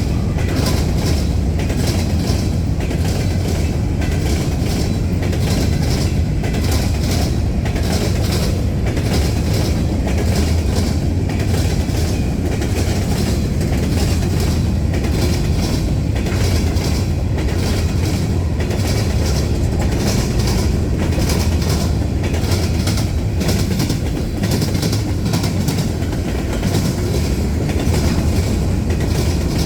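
Freight cars of a CSX trash train rolling steadily past: a continuous heavy rumble with repeated clicks of the wheels over rail joints.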